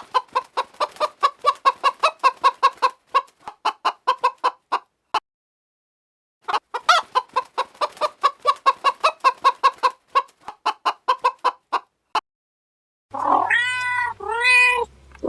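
A hen clucking rapidly, about six clucks a second, in two runs of about five seconds each with a short silent gap between them. Near the end come two drawn-out meows from a cat, each rising and falling in pitch.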